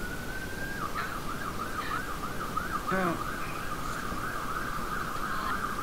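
Emergency vehicle siren: a slow rising wail that switches about a second in to a fast warbling yelp, about four to five cycles a second.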